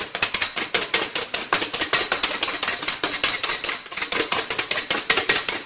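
Wire balloon whisk beating egg whites in a stainless steel bowl: rapid, even clicking of the wires against the metal, many strokes a second. The whites are almost whipped to soft peaks.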